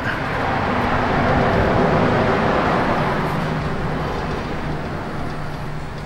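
Steady rushing road noise of a vehicle going by, swelling over the first couple of seconds and then slowly fading.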